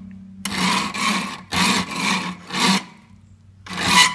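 Flat file rasping across the metal point of a frog gig held in a bench vise, sharpening it. About five forward strokes, with a pause before the last one.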